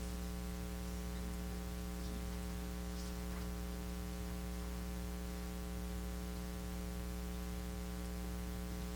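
Steady electrical mains hum with a stack of buzzy overtones and a hiss, picked up on the recording's audio feed. A few faint ticks come through the hum.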